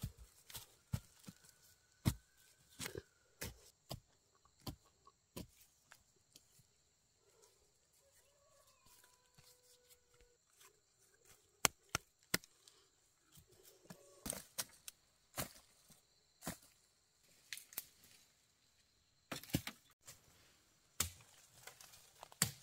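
A series of sharp chopping or cutting strikes, irregular and about one every half second to a second, with a pause of a few seconds in the middle.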